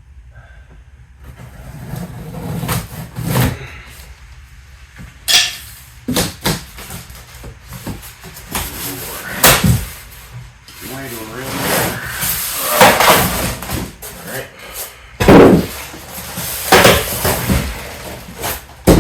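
Cardboard packaging rubbing, scraping and tearing as a boxed air compressor is worked out of its carton, with several sharp knocks along the way.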